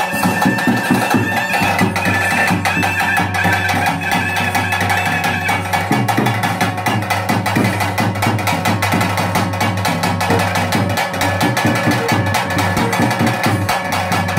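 Traditional bhuta kola ritual music: a reed pipe plays a wavering melody over a steady drone, with fast, dense drumming and clicking percussion.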